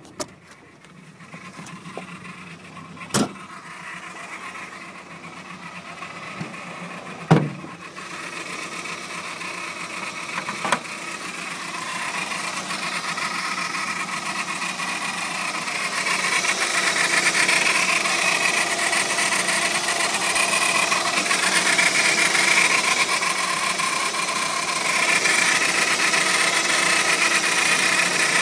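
VW Golf Mk1 engine running with a steady mechanical noise, which the owner thinks comes from the cambelt. The noise grows louder over the first half and then holds steady, with three sharp knocks in the first half.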